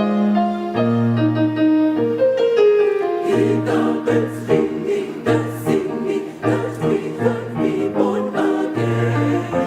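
A choir singing in parts. It holds sustained chords for the first three seconds, then sings words from about three seconds in.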